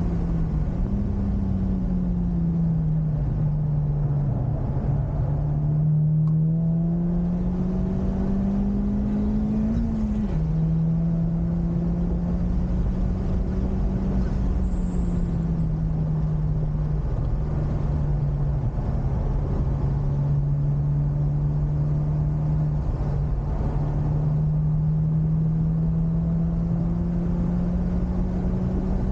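Honda Civic Type R FK8's 2.0-litre turbocharged four-cylinder engine under way on track, its note rising and falling with the revs and dropping sharply at a gear change about ten seconds in, over a steady rush of road noise.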